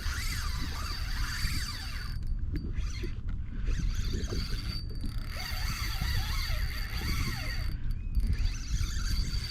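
Hobie Compass kayak's pedal drive creaking and squeaking as it is pedalled steadily, over a continuous low rumble of wind and water.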